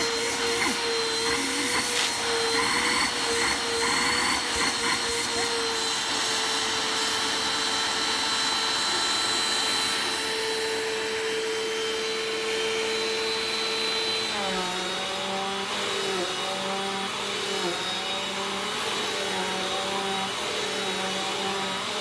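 Bissell PowerForce Compact upright vacuum cleaner running on carpet with a steady motor whine. About two-thirds of the way in its note drops to a lower pitch and then wavers slightly.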